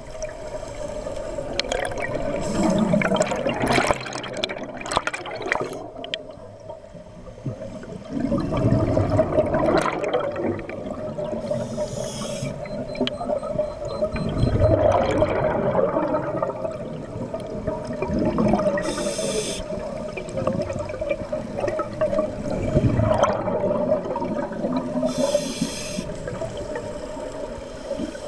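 Scuba diver breathing through an open-circuit regulator underwater: a rush of exhaled bubbles every four to six seconds, with the short hiss of an inhalation between some of them.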